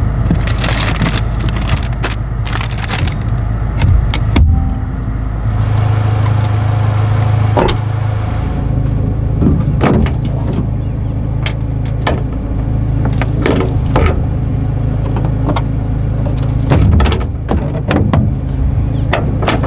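Clicks and knocks of a pickup's rear seatback latch being released and the seat folded, then the tailgate handle being worked and the tailgate lowered, with heavier knocks near the end, over a steady low hum.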